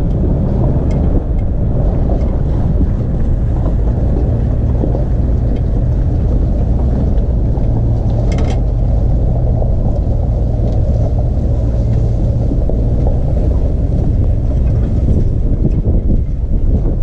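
Four-wheel-drive vehicle's engine running steadily at low revs while it crawls along, heard through a camera mounted on the bonnet, with some wind rumble on the microphone.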